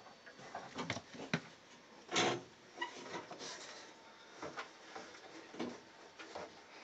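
Metal clunks, knocks and scrapes of an A-frame evaporator coil being handled and worked into a furnace cabinet, with a louder thump about two seconds in.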